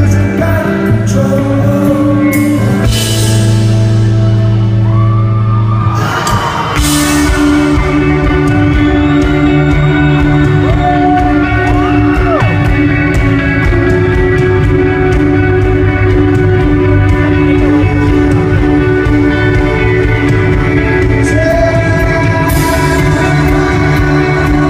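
Live rock band playing a song with electric guitar, drums and singing. There are cymbal-like crashes a few seconds in, again around six seconds in, and near the end.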